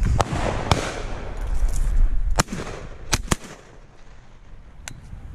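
A string of about six shotgun shots from at least two hunters, the three loudest close together a little past two seconds in. Wind rumbles on the microphone during the first couple of seconds.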